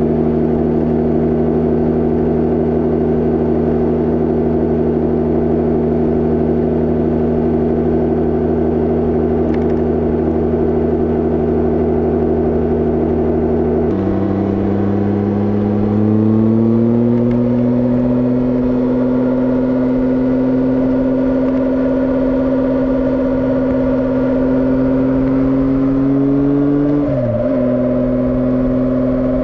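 Knobby Pirelli Scorpion Rally dual-sport tyres droning on asphalt under a motorcycle at speed: a loud, steady hum of several tones at 90 km/h. About halfway through it changes to motorway speed, and the tones climb and hold higher. That pitch rises with speed, and the tyres are very noisy, reaching a rather shrill pitch at 130 km/h.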